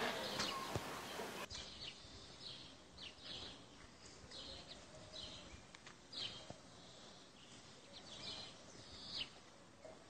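Faint outdoor street ambience with small birds chirping now and then, short high calls every second or so.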